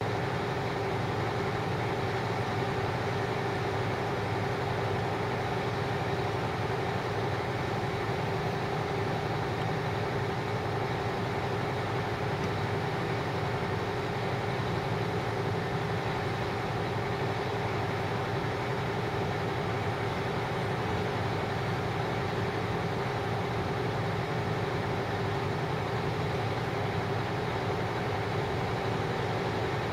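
Fire department ladder truck's diesel engine idling steadily.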